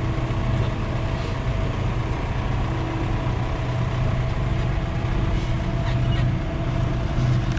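John Deere 5080R tractor's diesel engine running steadily, a constant low hum with a few held tones and no change in speed.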